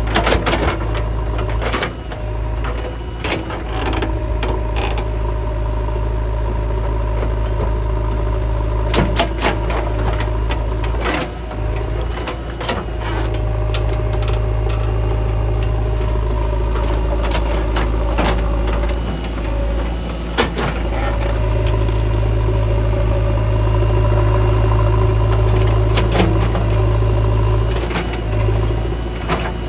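JCB 3DX backhoe loader's diesel engine running steadily while working, with scattered sharp knocks.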